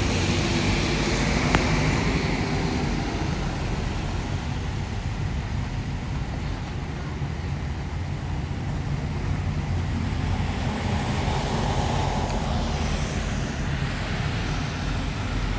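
Steady low rumble with hiss, typical of road traffic, swelling a little around eleven to thirteen seconds in.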